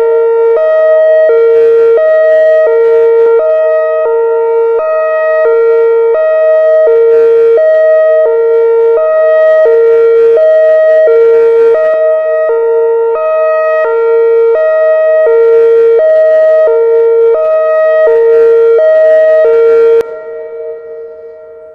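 Whelen electronic outdoor warning siren sounding its Hi-Lo tone: two steady pitches alternating evenly. It cuts off about twenty seconds in, and the sound dies away in an echo.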